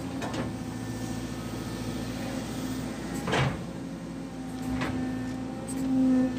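Excavator engine and hydraulics running steadily, heard from inside the cab, swelling near the end as the arm is worked. Several sharp knocks are mixed in, the loudest about three and a half seconds in.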